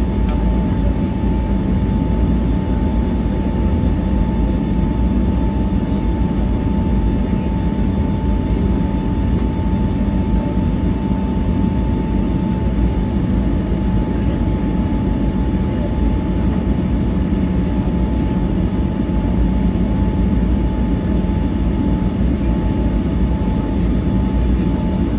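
Airbus A320neo's Pratt & Whitney PW1100G geared turbofans and airflow heard from inside the cabin: a steady, even rumble with a steady whine that fades a little about halfway through.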